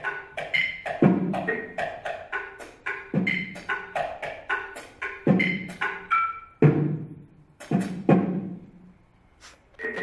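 Percussionist striking an assortment of small found objects on a tabletop with mallets, in quick irregular rhythms: dry taps and clinks with short pitched rings, with a deeper thud every second or two. The playing stops for about a second near the end.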